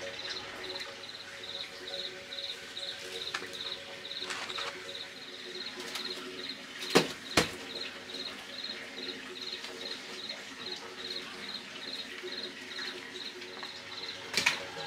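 A high-pitched insect chirping steadily, about three chirps a second. Two sharp knocks come about halfway through, the loudest sounds, and another brief knock near the end.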